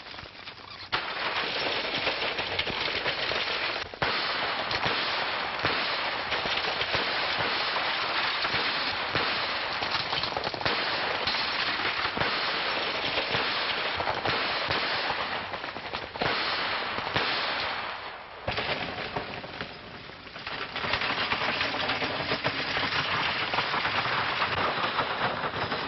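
Volleys of gunshots from an old 1930s film soundtrack, sharp cracks over a dense steady crackling rush. The noise dips briefly about eighteen seconds in before picking up again.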